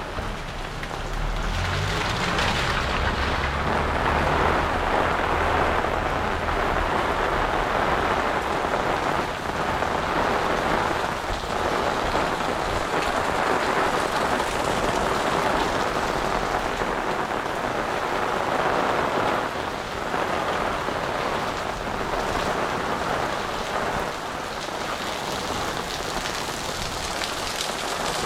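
Heavy rain pouring and splashing on hard surfaces, a steady dense hiss. A low rumble runs underneath through the first half and fades out past the middle.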